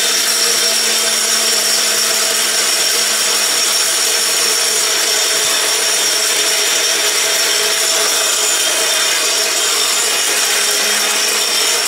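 Electric mixer grinder with a stainless-steel body running steadily at full speed, dry-grinding lentils into gram flour: a loud, even grinding whir with a steady high whine.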